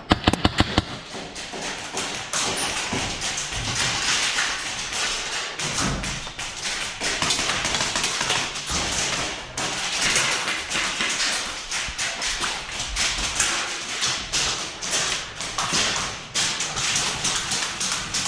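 Airsoft gunfire and BB impacts: a dense, irregular run of sharp clicks and taps, with a few louder cracks in the first second.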